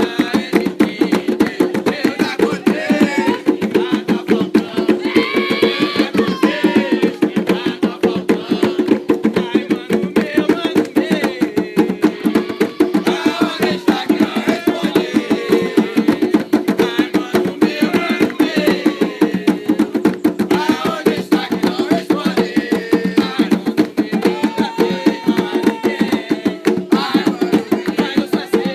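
Ponto cantado drumming on atabaque hand drums, a fast, steady beat, with voices singing along.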